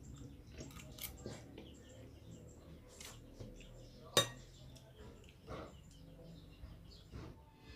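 Spoon and fork clinking and scraping on a plate during eating: a few faint, scattered clinks, the sharpest about four seconds in.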